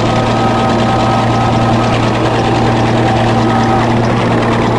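Bulldozer's diesel engine running steadily with a deep even hum and no change in pitch.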